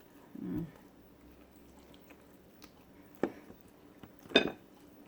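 A person eating pork stew with corn grits: quiet mouth sounds, a short hum about half a second in, and two sharp clicks, a little after three seconds and again about four seconds in.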